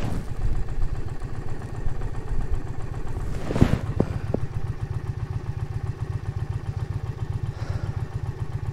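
Indian Challenger's V-twin engine idling steadily with a low, even pulse. About three and a half seconds in there is a brief clatter and scrape, followed by a couple of small clicks.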